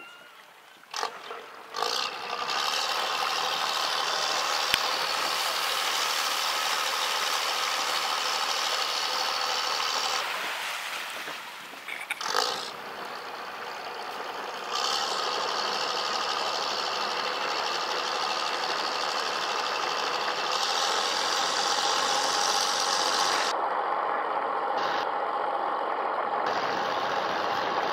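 Ferry's engine running steadily, heard on board, with an even whine over the noise. It drops for a few seconds about ten seconds in, then picks up again.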